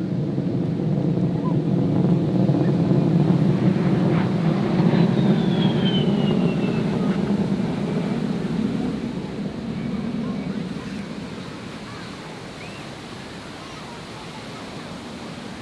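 Jet aircraft flying past at an air show: a deep rumble that swells over the first few seconds and then fades away through the second half.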